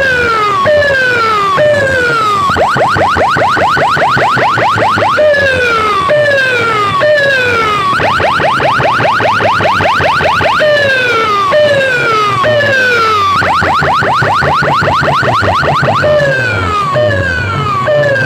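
Loud electronic siren-style alarm tones in a repeating cycle: three falling sweeps, each a little under a second, then a fast run of short rising chirps, about eight a second, for roughly two and a half seconds, over and over. A low steady hum runs underneath.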